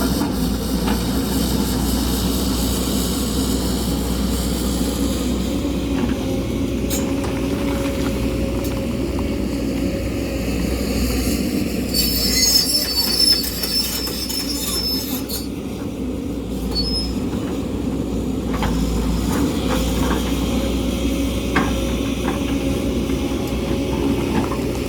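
Excavator's diesel engine running under steady load while its bucket digs into rocky ground, with scattered clanks of steel on rock. About halfway through, a brief high metallic squeal of steel scraping hard rock.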